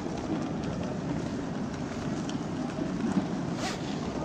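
Airport terminal hall ambience: a steady low rumble of suitcase wheels rolling over the stone floor, with a murmur of travellers' voices in a large echoing hall. A brief sharp sound comes near the end.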